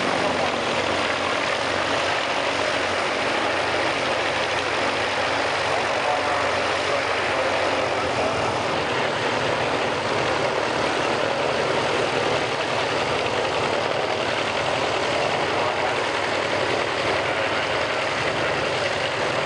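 Nord Noratlas's Hercules sleeve-valve radial engine running steadily at low power on the ground, one propeller turning while the other engine stands stopped.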